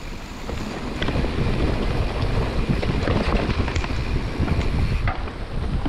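Wind buffeting the helmet or chest camera's microphone as a mountain bike runs down a damp dirt trail, with the rumble of knobby tyres over the ground and a few sharp clicks and rattles from the bike hitting bumps.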